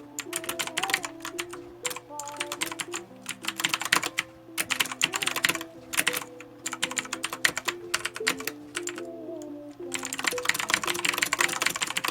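Redragon Kumara K552 mechanical keyboard with Outemu Blue clicky switches typed on in fast bursts of keystrokes, broken by short pauses, over background music.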